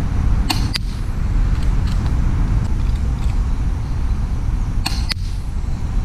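Sharp snaps from a silenced Socom Mk23 airsoft pistol's shots and its BBs striking a paper target, in two close pairs, one about half a second in and one near the end, with a few fainter ticks between. A steady low wind rumble on the microphone runs underneath.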